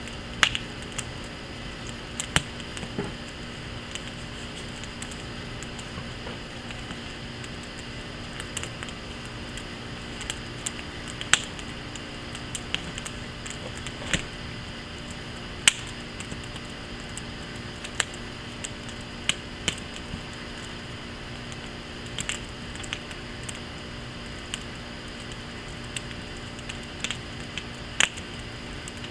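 Wood fire in a firepit crackling, with irregular sharp pops and snaps that throw sparks, a few of them much louder than the rest.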